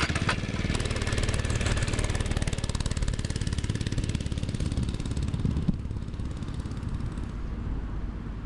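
Baja Doodle Bug mini bike's small 96cc single-cylinder engine running under throttle as the bike is ridden, then dropping off in level about six seconds in as it moves away.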